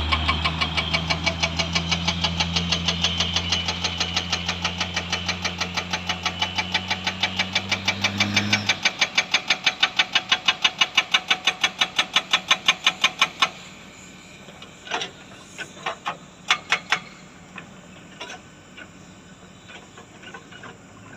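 Excavator-mounted hydraulic breaker hammering rock in a rapid, even string of blows, several a second, over the excavator's diesel engine working under load. The engine note drops away about 9 s in, the hammering stops about 13 s in, and a few scattered knocks follow.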